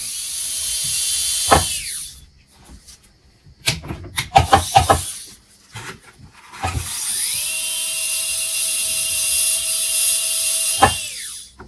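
NSK S-Max M95L speed-increasing contra-angle dental handpiece running at high speed, a steady high whine, in a test run after its repair. It runs briefly at the start, then again for about five seconds from roughly six seconds in, and each run winds down with a falling pitch. Between the runs come a few sharp clicks and taps.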